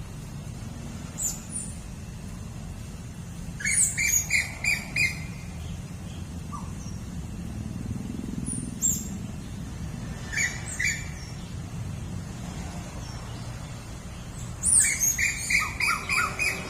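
Birds squabbling, giving sharp chirping calls in several bursts of quick repeated notes, the longest run near the end, over a steady low rumble.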